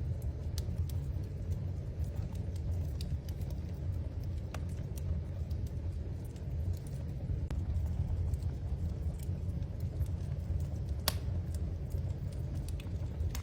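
Wood fire crackling in a fireplace: scattered sharp pops and snaps over a steady low rumble, the loudest pop about eleven seconds in.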